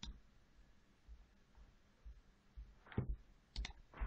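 Computer mouse clicking: one click at the start, then a cluster of three or four clicks near the end, over faint room hiss.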